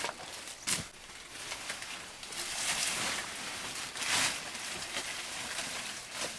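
Rustling and handling noise that swells and fades a few times, with a sharp click just before a second in.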